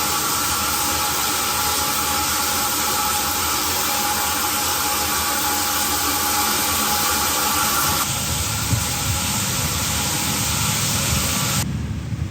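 Shower spray running, a loud steady hiss of water. Near the end the hiss cuts off suddenly, leaving a low rumble.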